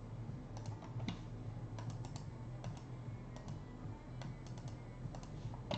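Faint, irregular computer keyboard and mouse clicks over a low steady hum.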